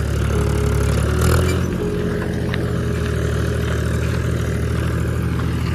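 Tractor diesel engine running steadily under load as it pulls a tined cultivator through dry soil. It swells briefly about a second in.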